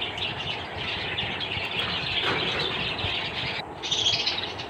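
Budgerigars chattering and chirping without a break, with a louder burst of calls about four seconds in.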